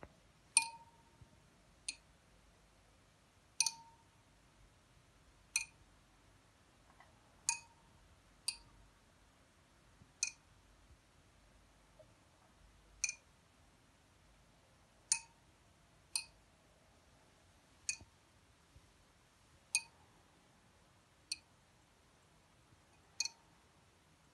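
Flying pendulum clock running: light metallic clinks that ring briefly, about fourteen of them at an uneven one-to-three-second pace, as the small ball on its thread swings round and catches on the brass posts, each catch letting the escapement advance.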